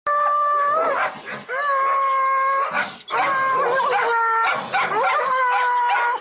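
German Shepherd howling in distress as a larger black dog bites at its head and neck: about four long, steady, high cries of around a second each, with short broken yelps between them.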